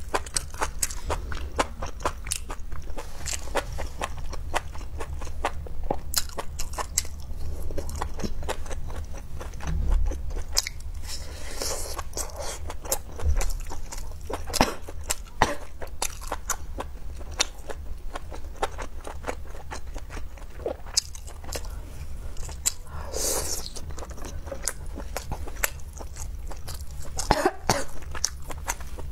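Close-miked chewing and crunching of grilled skewered food, with a dense run of small wet clicks and crackles.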